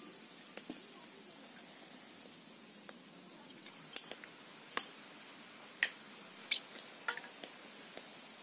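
About a dozen sharp, irregular clicks and taps as a steel spoon cuts into peeled hard-boiled eggs and knocks against the rim of a stainless steel bowl.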